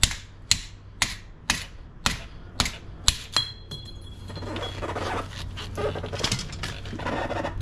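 Hand tools working on metal: sharp metallic taps about twice a second, seven in all, then a short high squeal and a stretch of scraping and rattling.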